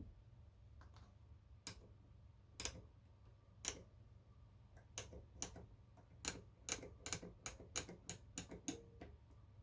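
A series of sharp clicks over a faint low hum, about one a second at first, then quickening to roughly three a second in the second half.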